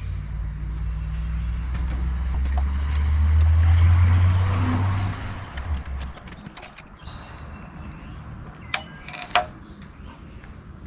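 Electric welder running for about five seconds, a steady low hum with an arc hiss that builds and then cuts off, as a nut is welded onto a rusted-in ball-joint collar to pull it out. A few sharp clicks and knocks follow near the end.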